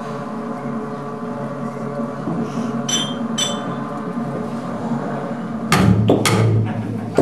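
Free-improvised ensemble music: a steady drone of several held tones, two short bright ringing pings about three seconds in, then a few loud sharp hits with a deep low thud near the end.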